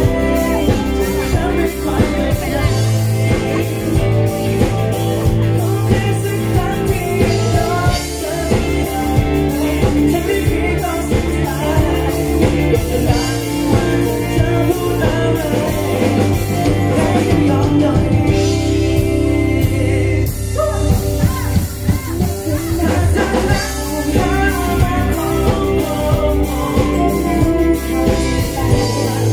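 A pop song performed live: a singer's voice through a microphone over instrumental backing with guitar and drums, amplified through PA speakers.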